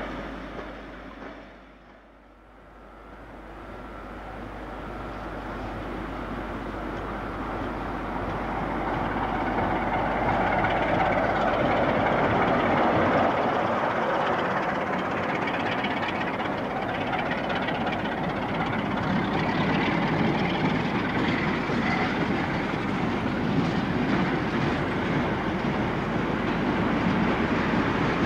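A Class 47 diesel locomotive hauling a freight train past at close range: the engine grows steadily louder over several seconds as it approaches, then the wagons run by with a continuous rumble and wheels clattering on the rails.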